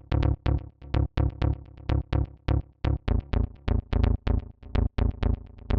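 Electronic dance music playback: a funky synth bass pattern of short, staccato notes, about four a second, played on FL Studio's Sytrus synth.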